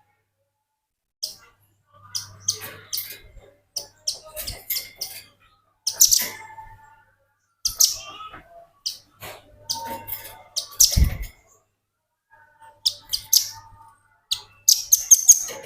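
Velvet-fronted nuthatch (rambatan paruh merah) calling: sharp, high chips and short rapid runs of notes in irregular bursts, with a quicker flurry of notes near the end.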